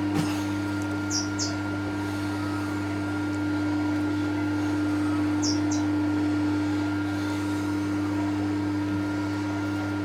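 TOS milling machine running steadily with a constant motor and gear hum, with two brief high double chirps, one about a second in and one about five seconds in.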